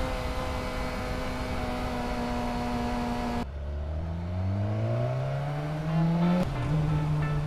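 BMW S 1000 XR's inline-four engine running through a LeoVince Factory S carbon slip-on exhaust: the revs fall steadily for about three seconds, then after a sudden cut the pitch climbs under acceleration, with a brief break a little over six seconds in before it settles.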